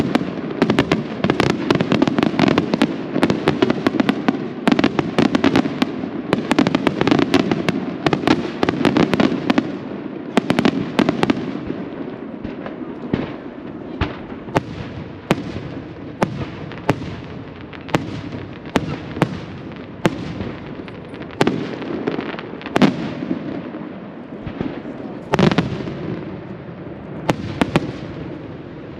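Aerial firework shells bursting: a dense volley of rapid bangs over a steady rumble for about the first ten seconds, then thinning to single bangs a second or so apart, with a couple of louder reports late on.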